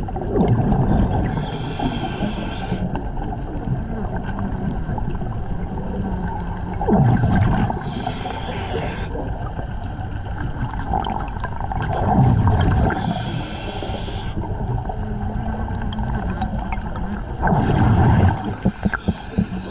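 A diver breathing underwater through a regulator: a hiss on each inhale, then a loud rumbling gush of exhaled bubbles, repeating about every five to six seconds over a steady underwater hiss.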